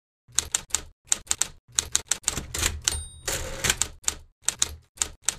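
Manual typewriter being typed on: sharp key strikes in quick, uneven runs starting a moment in. About three seconds in, a short bell ring sounds, followed by a longer rasping slide as the carriage is returned.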